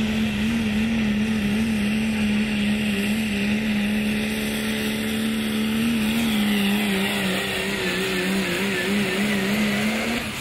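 Diesel Dodge Ram pulling truck's engine held wide open at high revs, hauling the sled under full load. The note is steady with a slight waver, and a high whistle sits above it.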